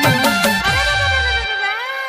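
Instrumental music from the intro of a Rajasthani folk song: a few drum strokes that drop in pitch over a held melody line that bends up and down.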